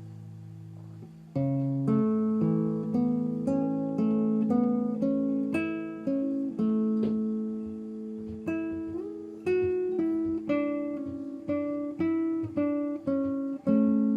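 Background music: acoustic guitar picking single notes over ringing bass notes, starting about a second in after a fading held chord.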